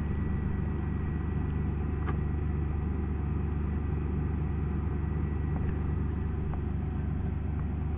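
1999 Chevrolet S-10 Blazer's 4.3-litre V6 idling steadily, heard at the tailpipe as it warms up after a cold start in freezing weather.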